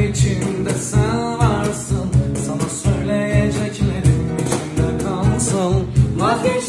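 Turkish folk song playing: a wavering, ornamented singing voice over plucked string instruments and a regular low beat.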